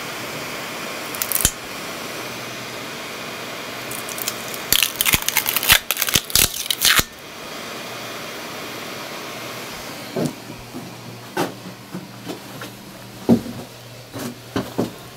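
Printed PLA figure being pried and torn off the masking-taped bed of an Anet A8 3D printer: a burst of crackling and tearing about five to seven seconds in, then scattered knocks as the print is handled, over a steady hum.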